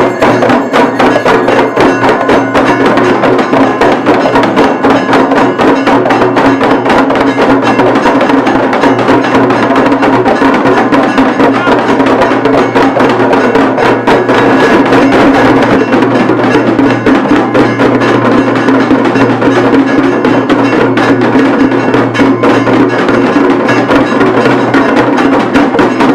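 Temple aarti percussion: bells and drums struck in a fast, unbroken rhythm, with a steady low tone held underneath.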